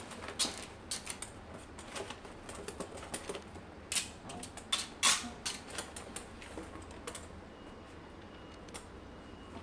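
Small dog's claws clicking and tapping on a wooden floor as it shifts about, a run of irregular sharp clicks that thins out after about seven seconds.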